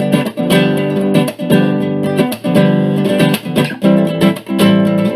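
Music: a strummed acoustic guitar playing a steady rhythm.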